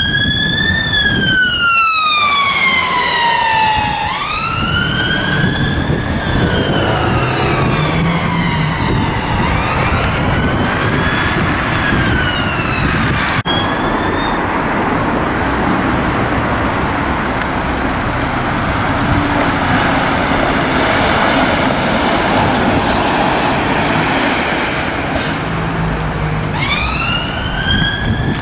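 Ambulance service response vehicle sirens on wail: a slow tone sweeping up and down about every five seconds, over traffic noise. The wail cuts off abruptly about halfway through, leaving mostly road and engine noise, and starts rising again near the end.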